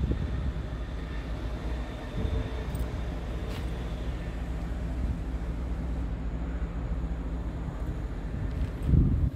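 Scania R tractor unit's diesel engine idling steadily, with a brief louder low rumble near the end.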